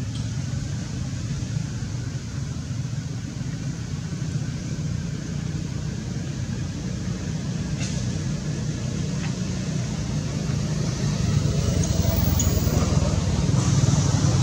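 Low, steady rumble of a motor vehicle engine running in the background, growing louder near the end as it comes closer.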